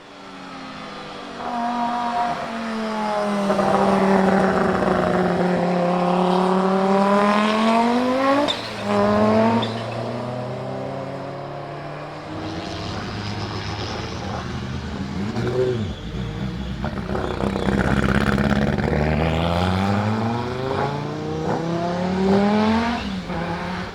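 Audi 90 quattro IMSA GTO race car's turbocharged 2.2-litre five-cylinder engine running hard, its pitch sinking and then climbing again several times as the car accelerates and shifts gear. The sound breaks off sharply for a moment about eight and a half seconds in.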